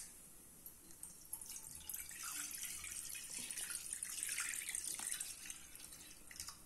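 Milk pouring from a plastic sachet into a nonstick kadai: a soft, splashing stream that starts about a second and a half in.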